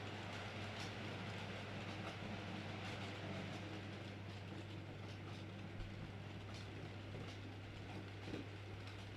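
Model train running on its track: a steady electric-motor hum with light, irregular wheel clicks over the rails.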